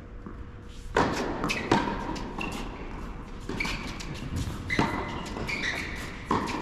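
Tennis doubles rally on an indoor hard court: sharp pops of rackets hitting the ball and of the ball bouncing, several in all, the loudest near two seconds in, echoing in the hall. Short high squeaks of shoes on the court come between the hits.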